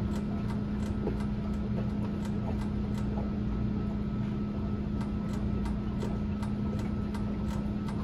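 2021 Toyota 4Runner's body being rocked by hand, giving a quick run of creaking ticks, about three or four a second, over a steady low hum. The noise is the parking brake cable rubbing against a nearby metal ring as the body moves.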